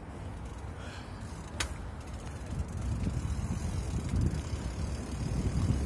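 Mountain bike rolling along a paved path: a couple of sharp clicks in the first two seconds, then a low rumble of tyres and wind on the microphone that grows louder as the bike picks up speed.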